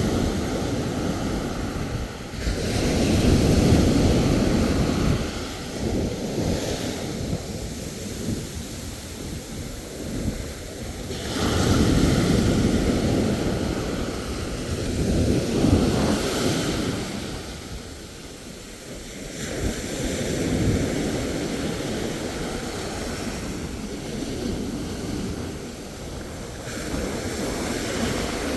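Ocean surf washing ashore, a steady rush that swells and falls back in surges several seconds apart, with wind buffeting the microphone.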